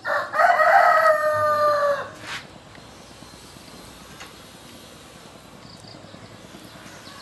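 A rooster crowing once: one loud call of about two seconds that sags slightly in pitch at the end, followed by a single short click.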